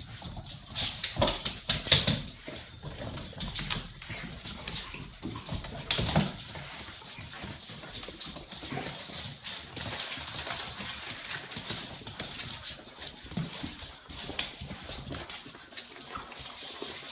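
Puppies making short dog sounds, with many scattered clicks and taps throughout; the loudest moments come about a second, two seconds and six seconds in.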